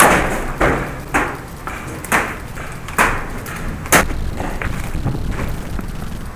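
Paintball shots: about six sharp single cracks at irregular intervals in the first four seconds, then quieter.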